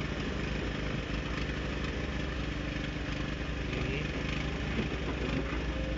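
An engine idling steadily, a low even rumble.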